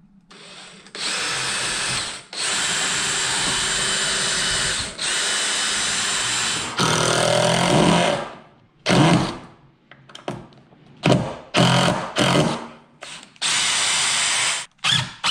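Cordless DeWalt impact driver and drill driving screws through the wooden attic ladder frame into the header. Several long, even runs of two to three seconds each, then a string of short bursts after about eight seconds in.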